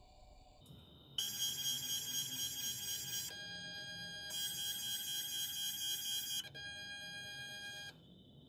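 CNC machine's stepper motors whining in steady high tones as the gantry moves the laser head. The pitch jumps to a new set of tones three times as each move changes speed, and the whine stops about eight seconds in.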